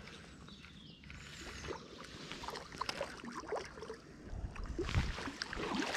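Water splashing and sloshing in short, irregular bursts that grow louder in the last second or two, as a hooked trout is brought in close at the water's edge.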